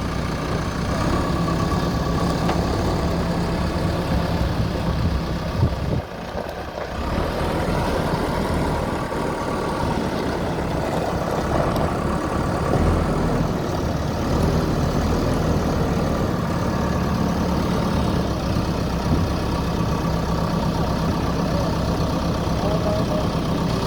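Diesel engine of a JCB backhoe loader running steadily, with a brief dip in level about six seconds in.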